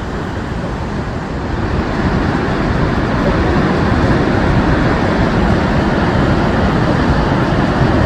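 Roar of the Rhine Falls, a large waterfall: a dense, steady rush of falling water that grows louder about two seconds in.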